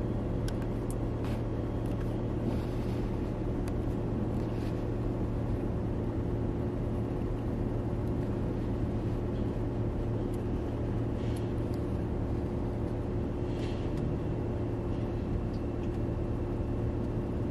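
Steady low hum of a car's engine heard from inside the cabin, even in level throughout, with a few faint ticks.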